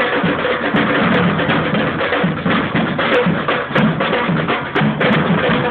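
Samba band drumming: large bass drums and higher-pitched drums playing together in a steady, driving rhythm, the deep drum strokes recurring evenly throughout.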